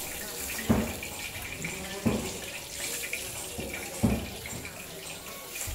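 Marinated chicken pieces sizzling in shallow oil on a large flat griddle, with three dull knocks of a metal spatula against the griddle, about one and a half to two seconds apart.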